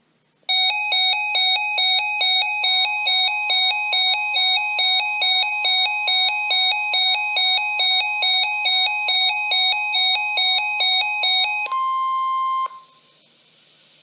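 Weather alert radio's alarm set off by a warning: a loud electronic beep pattern alternating rapidly between tones, several beeps a second, for about eleven seconds. It gives way to a steady tone near 1 kHz, the NOAA Weather Radio warning alarm tone, which cuts off about a second later, leaving faint hiss.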